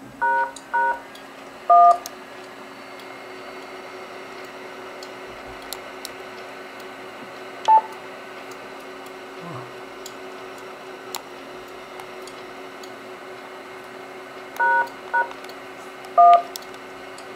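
DTMF keypad tones from the Yaesu FT-897's hand microphone, keying a command to request the repeater's Echolink information: three short beeps near the start and three more near the end. Between them is a steady hiss with a low hum, and a single short beep about halfway.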